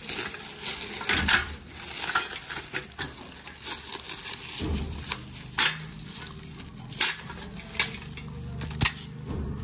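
Packing material and loose metal parts, such as the kit's screws, being handled and rummaged through: rustling with scattered sharp clicks and clinks.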